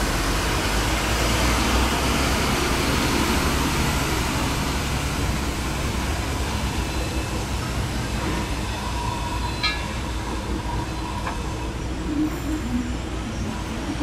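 Busy city street traffic: a heavy garbage truck pulling away while buses and cars pass, over a steady low rumble that slowly fades.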